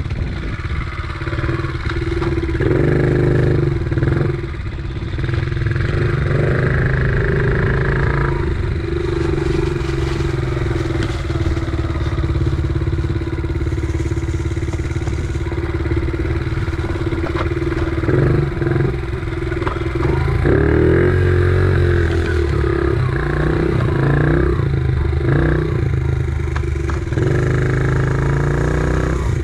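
Dirt bike engine running while riding, its revs rising and falling with the throttle several times.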